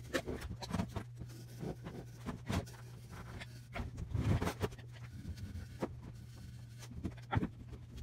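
Irregular knocks, scrapes and rustles of ceramic fiber board being fitted into and pulled out of a gutted microwave's sheet-metal cavity, over a steady low hum.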